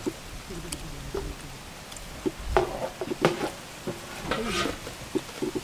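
People eating a meal: scattered crackling and handling noises of food and plates, with a few sharper knocks about two and a half and three seconds in, and brief low voices in the background.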